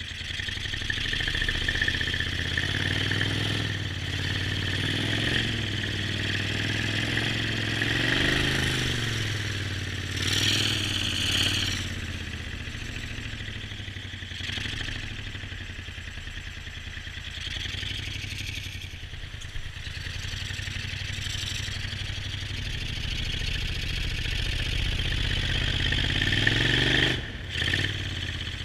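Jon boat's motor running at speed, its pitch rising and falling several times as the throttle changes, over a steady rush of water and wind past the hull.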